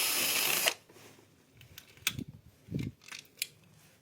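A handheld power screwdriver whirring, cutting off abruptly under a second in, followed by several light clicks and a couple of soft knocks as the wall socket is worked on.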